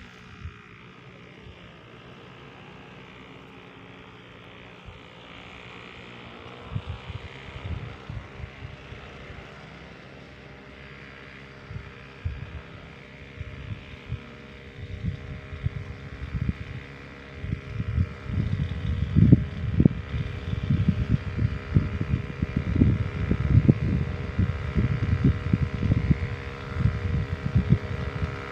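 Motorized backpack crop sprayer running with a steady drone. Wind buffets the microphone in gusts, stronger in the second half.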